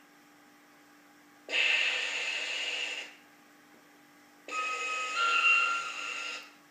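Sound module of a KISS Gem 4/4 garden-scale model locomotive playing through its small loudspeaker: three short bursts of hiss, about a second and a half each, the last carrying a two-note tone that steps up in pitch partway through. A faint steady hum lies underneath.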